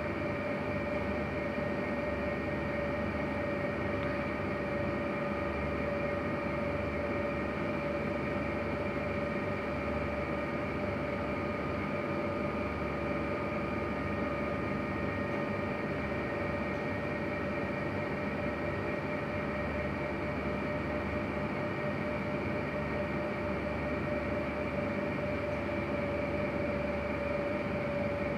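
A steady machine hum with a constant high whine, unchanging throughout.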